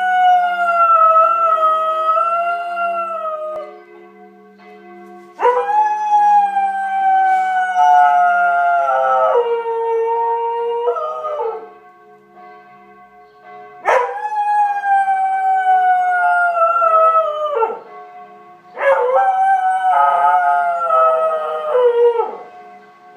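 Border collie howling along to ringing church bells: a series of long howls, each sliding slowly down in pitch before breaking off, with short pauses between them. The bells ring faintly and steadily underneath.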